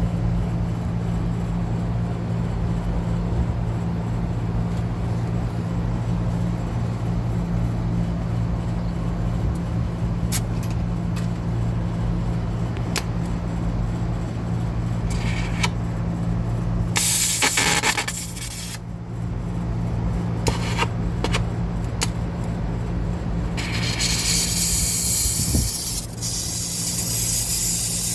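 A steady low machine hum with a few sharp clicks. A short burst of hissing gas comes a little past the middle, and a longer hiss of several seconds comes near the end.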